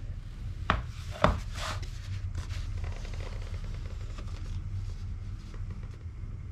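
Handling noises in a small room: two short knocks about a second in, then faint rubbing, over a steady low hum.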